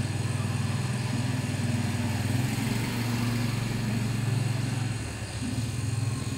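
A small engine or motor running steadily, a low hum with a fast, even pulsing that dips briefly near the end.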